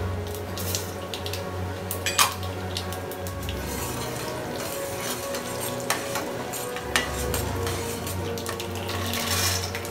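Urad dal and mustard seeds sizzling in hot oil in a stainless steel pan, stirred with a slotted metal spatula that scrapes the pan and clinks sharply against it a few times, most clearly about two, six and seven seconds in.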